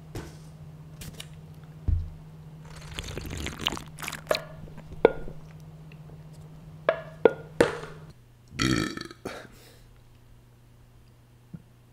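A man drinking: a string of short gulps and swallowing clicks, then a single burp about nine seconds in.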